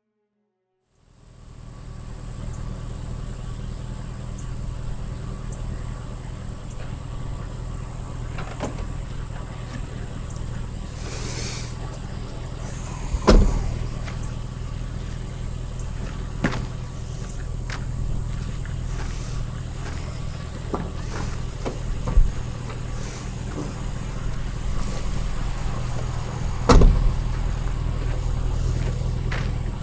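Dodge pickup truck idling with a steady low hum, broken by two loud slams of a truck door, one about halfway through and one near the end.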